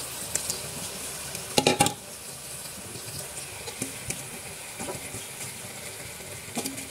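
Yogurt-marinated mutton sizzling in hot oil in a kadai, a steady hiss of frying. A short clatter against the pot about a second and a half in, and a lighter knock near the end.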